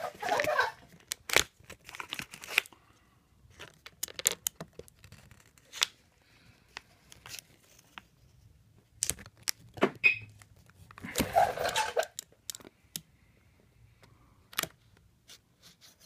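Vinyl wrap film being worked and trimmed by hand: scattered crinkles, ticks and short tearing scrapes, with the longest burst about eleven seconds in.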